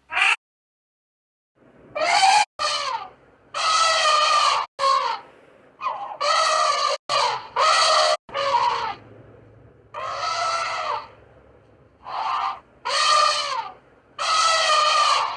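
A bird's loud, harsh calls, repeated about a dozen times; each call lasts under a second and drops in pitch at its end. Several calls are cut off abruptly.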